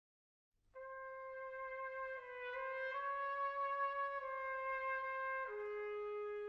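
Music: a solo trumpet playing a slow melody of long held notes, coming in after about half a second of silence and settling on a lower sustained note near the end.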